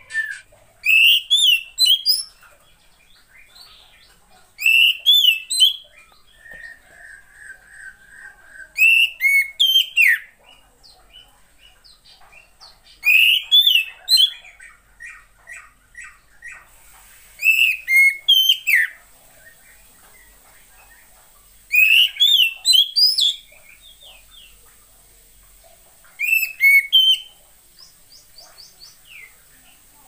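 Female oriental magpie-robin calling in short bursts of fast notes that sweep sharply up and down, seven bursts about four seconds apart, with softer chatter between. This is the female call used to stir a reluctant male to sing.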